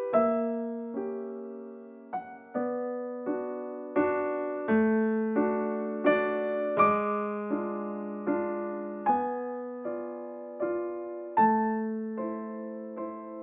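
Background piano music: a slow, gentle melody of single struck notes, each one fading before the next.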